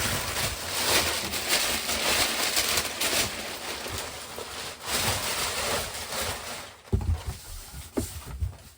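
Packaging being handled and rubbed as a large RC car is pulled from its box: a run of rustling swells, then a few knocks near the end.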